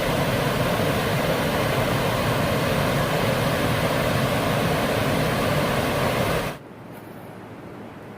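Steady rush of creek water running over rocks, which cuts off abruptly about six and a half seconds in to a much fainter hiss of water.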